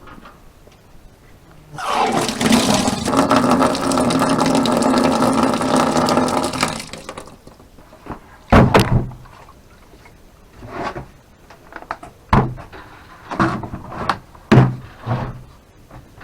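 Water pouring hard into a container for about five seconds, then cutting off, followed by a series of knocks and thumps.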